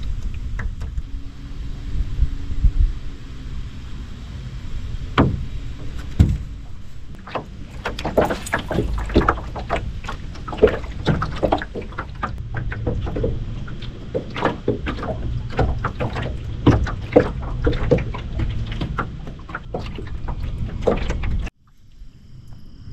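Irregular knocks and slaps on a small aluminum jon boat's hull over a steady rumble of wind on the microphone, the knocks coming thick and fast in the second half. The sound cuts off suddenly near the end to a quieter background.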